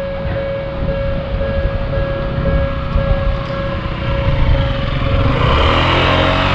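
Japanese level-crossing warning bell ringing steadily with its repeating tone. Over the last couple of seconds a Toden Arakawa Line tram comes up loudly, with its running noise growing and a rising whine.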